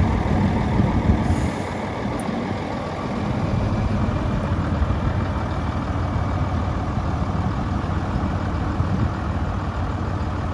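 1973 Mack T-600 grain truck's Mack diesel engine idling steadily.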